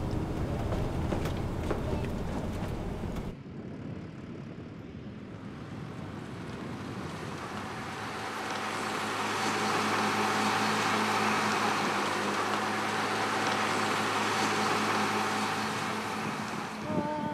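Wind and road rumble of a moving car heard through an open window, cutting off sharply about three seconds in. It is followed by a steady hiss with a constant low machine hum that swells after a few seconds.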